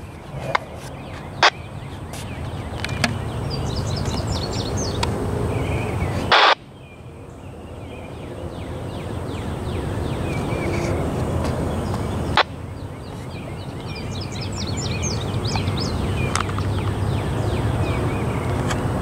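Songbirds chirping over a low outdoor rumble. The rumble keeps building, cuts off suddenly after a sharp knock about six seconds in and again after another knock near twelve seconds, then swells up again.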